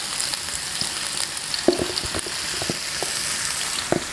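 Par-cooked baby potatoes sizzling steadily in hot coconut oil, with a few short knocks as the potatoes settle against the pan.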